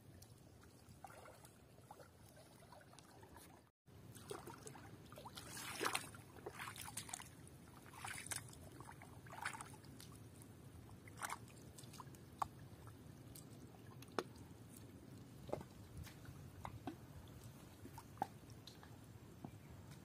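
Faint sloshing of shallow water as people wade and haul a drag net through it, with scattered small splashes that come thickest a few seconds in and thin out afterwards.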